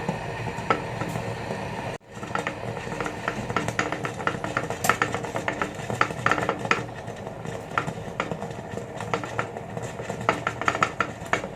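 A pot of Chinese herbal medicine boiling on the stove: a steady hiss under many small, irregular clicks and clinks of metal. The sound breaks off briefly about two seconds in.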